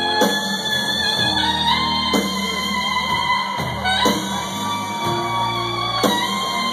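Live rock band playing a slow song: a saxophone holding long notes that slide between pitches, over guitar and drums, with a drum hit about every two seconds.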